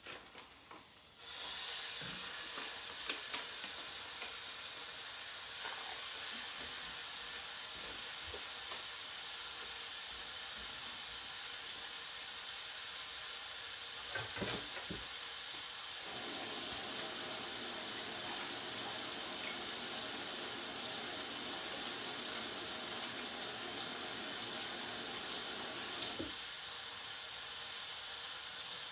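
Ground lamb dropping into a hot frying pan of onions and garlic in oil about a second in, then sizzling steadily. A tap runs for about ten seconds in the second half, adding a lower rush beneath the sizzle.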